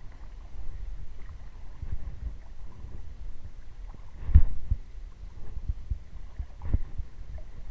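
Footsteps wading through shallow water along a reedy shore, each step a low thud, over a low wind rumble on the microphone. A heavier thud comes about four and a half seconds in, and another near seven seconds.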